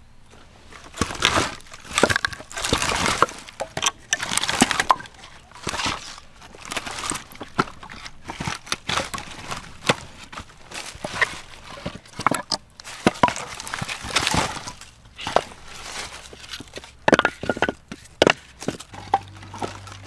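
Split firewood logs being handled and stacked on a woodpile: irregular wooden knocks and clunks as pieces are set down and knocked against one another, mixed with short scuffing rustles.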